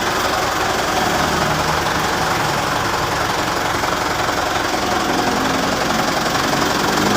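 Mitsubishi Canter FE84 BC bus's diesel engine running steadily near idle, its speed and loudness beginning to climb slightly near the end.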